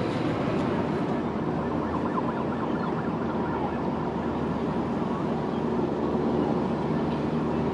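A diesel train's engine running steadily with a constant hum.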